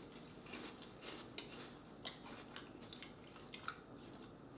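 Faint, irregular crunching of a person chewing a mouthful of crunchy chocolate breakfast cereal in milk.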